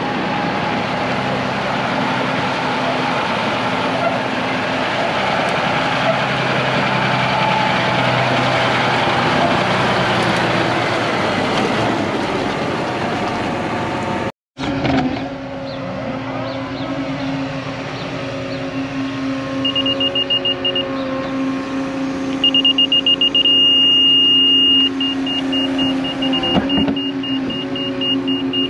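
Diesel engines of heavy worksite machinery running, with a rushing noise over them in the first half. After a sudden cut about halfway through, a machine's engine runs steadily and a rapid, high-pitched warning beeper sounds on and off, loudest about two-thirds of the way through.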